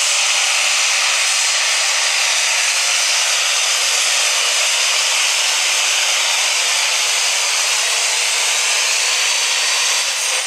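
Diesel pulling tractor's engine running wide open, loud and steady, as it drags a weight-transfer sled down the track.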